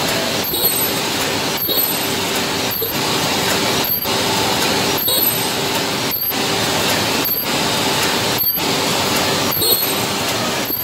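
Automated ultrasonic carton-sealing machine running, a steady mechanical clatter and whir. It works in a regular cycle of about one stroke a second, each marked by a brief dip and a short high-pitched tone.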